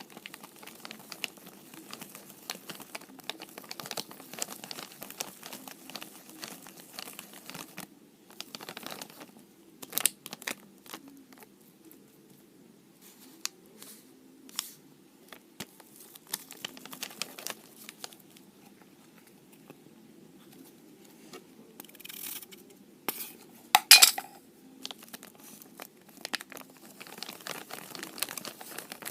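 Irregular clinks and scrapes of a utensil against a dish, with crinkling, as ingredients are mixed; a louder clatter comes about 24 seconds in.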